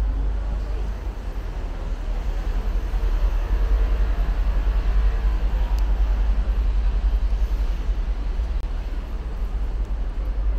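Steady low rumble under a wash of outdoor street noise.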